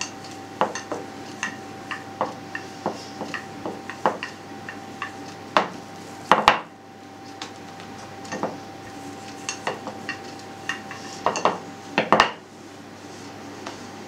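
Wooden rolling pin rolling and knocking on a stone pastry board as dough is rolled out: a string of light clicks and taps, with a few louder knocks around the middle and again near the end.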